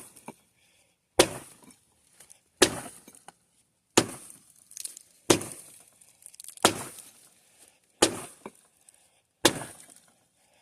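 Axe chopping into very dry, tough elm: seven sharp strikes at a steady pace, about one every second and a half, each with a short bright ring and a few small clicks after it.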